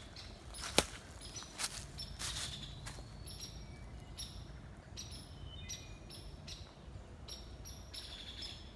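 Small birds chirping in repeated short, high notes, with a single sharp click about a second in.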